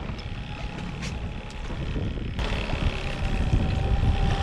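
Outboard motor running steadily while the boat trolls, with wind and sea noise over it that grows louder about halfway through.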